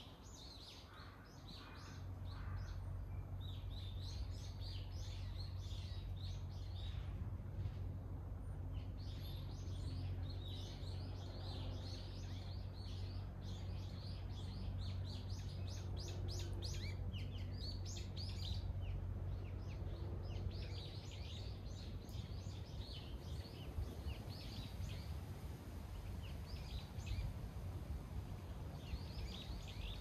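Many small birds chirping and singing, with a steady low rumble underneath that gets louder about two seconds in.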